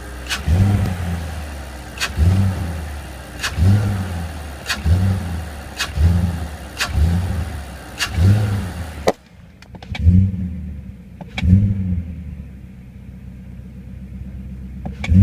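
A repeated low sucking noise: about seven pulses, each starting with a click, roughly one every 1.3 seconds. The sound cuts off about nine seconds in, then two more pulses follow before it goes quieter.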